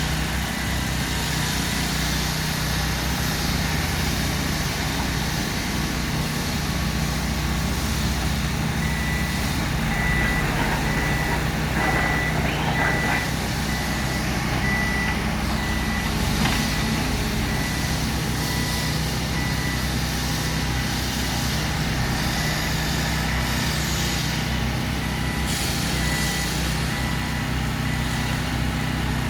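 Diesel engine of an excavator or similar earthmoving machine running steadily, with a reversing alarm beeping about once a second from about a third of the way in until near the end. A few short knocks come around the middle.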